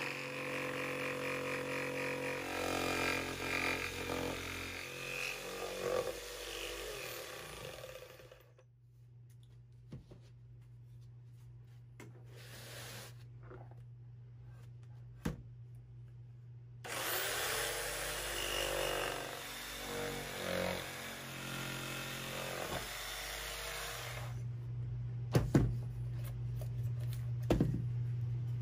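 Jigsaw with a fine scrolling blade cutting through a thick wood block, running in two stretches about eight seconds into the clip and again from about 17 to 24 seconds, with a quiet gap and a few clicks between. Near the end the saw is off and the block is handled, with a couple of sharp knocks.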